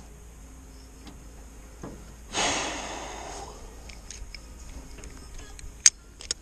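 A long, breathy exhale about two seconds in, a sigh after losing a big bass, then two sharp clicks near the end from handling the spinning rod and reel.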